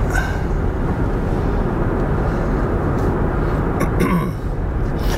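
Steady road and wind noise inside an electric car's cabin at highway speed, mostly tyre rumble on the pavement with no engine sound.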